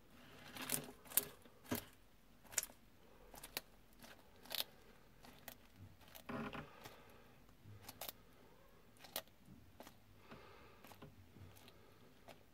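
Bearded dragon crunching a locust in its jaws: a run of sharp, irregular crunches, loudest in the first couple of seconds, with softer rustles between them.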